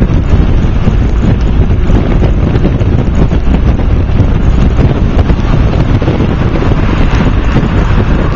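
Loud, steady wind buffeting on the microphone over the road rumble of a moving car.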